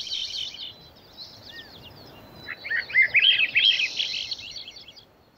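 A bird singing: quick, high chirps and trills, a short phrase at the start and a longer one from about two and a half seconds in.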